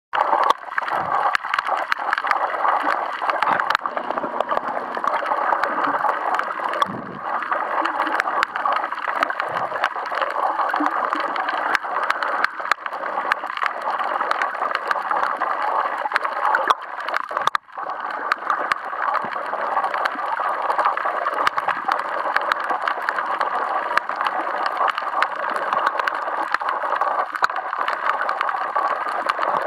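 Underwater sound picked up by a camera submerged while snorkeling: a steady, muffled rush of water with many small clicks and crackles throughout.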